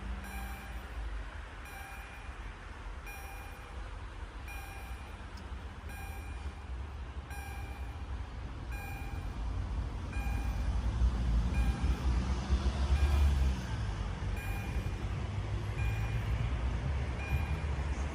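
Electronic level-crossing warning signal (EHL-S10) sounding a steady repeated chime, one ding about every second and a half. Under it a low rumble builds about ten seconds in and is loudest a few seconds later.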